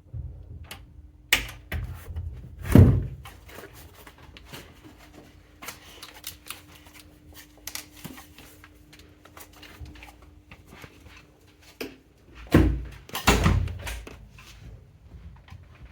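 Scattered thumps, knocks and clicks in a small room, over a faint steady hum. The loudest thumps come about three seconds in and again near the end.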